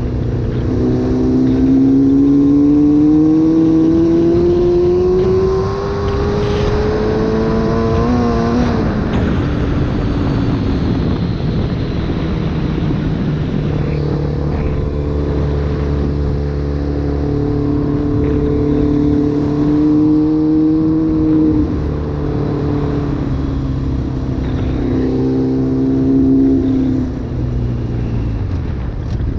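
Yamaha FZR600's inline-four engine pulling under throttle, its pitch rising steadily for about eight seconds before falling away. It then holds a steady pitch at speed for several seconds, eases off, and gets a short burst of throttle near the end, with wind noise underneath.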